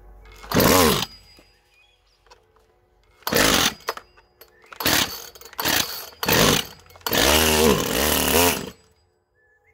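Poulan Pro two-stroke chainsaw revved in six short bursts, each rising in pitch and then falling back, with quiet gaps between them. The last burst is held about a second and a half.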